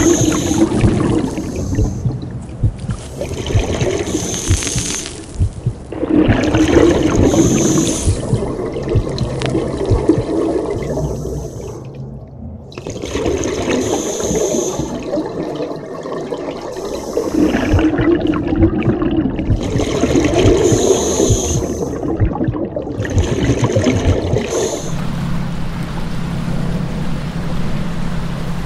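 Scuba diver breathing through a regulator underwater: bursts of exhaled bubbles gurgle past every three to four seconds, with quieter gaps between breaths. Near the end the bubbles stop and a steady low hum takes over.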